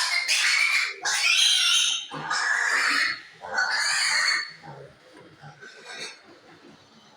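Piglet squealing: four long, loud, harsh screams in quick succession, as a piglet held for a vaccine injection struggles. The squeals give way to quieter grunts about halfway through.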